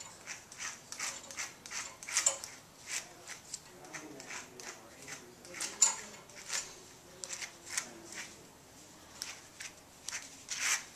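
A grooming brush raked again and again through a long-haired dog's coat, a quick, irregular scratching of strokes, a couple of them sharper than the rest. The brush is working out a waterless cleaning powder that has soaked up the dirt.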